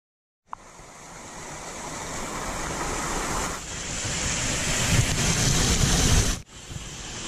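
Waterfall pouring over rocks close by: a steady rush of falling water. It starts about half a second in, grows louder, and drops out briefly about six seconds in before coming back.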